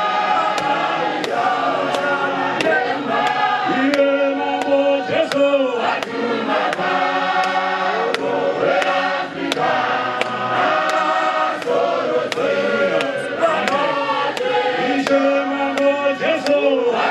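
A group of voices singing a hymn in harmony, with a man's voice through a microphone among them. A sharp, regular beat comes about every half second.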